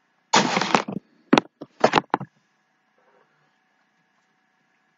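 A short scrape, then a few sharp knocks and clinks of a bowl and spoon being handled and set down on a kitchen counter.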